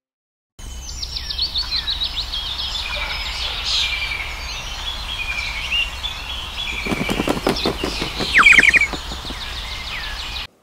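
Small birds chirping and singing over and over, with a louder burst of rapid pulsed calling about seven to nine seconds in. A steady low hum runs underneath.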